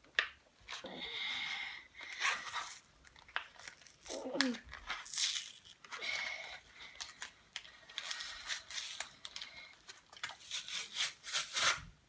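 Plastic product packaging being crinkled and torn open by hand: a run of irregular rustles, crackles and short rips.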